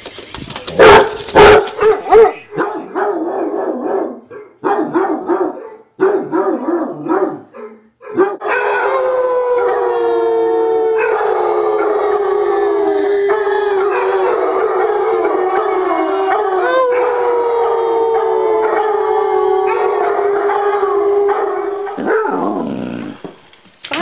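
Basset hounds giving a few loud barks, then short wavering bays. About eight seconds in, a long drawn-out howl begins; it holds steady and slowly falls in pitch until near the end.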